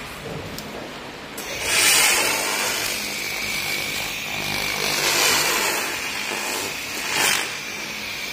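Handheld fiber laser welder at work: a loud hiss with a faint high whine running through it, starting about a second and a half in, swelling and easing three times, and cutting off at the end.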